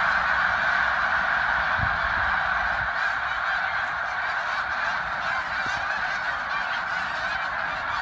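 A huge flock of snow geese in flight, calling all at once: a dense, unbroken din of high-pitched honking that fades slightly as the flock moves off.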